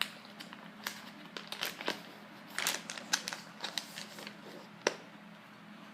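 Plastic packaging wrap crinkling and packaging tape being picked and peeled off it by hand, in irregular crackles and sharp little clicks, busiest in the middle.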